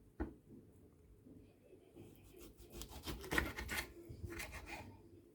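A series of quick, rough rubbing and scraping strokes from hand food preparation, bunched together from about halfway through and thinning out near the end.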